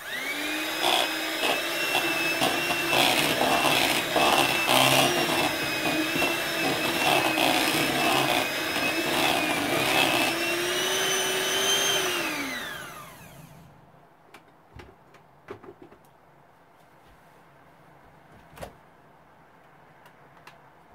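Handheld electric mixer running steadily at one speed, beating a thick cake batter in a bowl, with irregular clatters of the beaters against the bowl. About twelve seconds in it is switched off and its whine falls away, leaving a few faint knocks.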